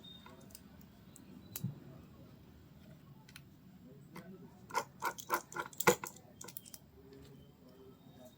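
Light clicks and taps of small hard parts and tools being handled during a phone repair: a single click early, then a quick run of clicks a little past the middle.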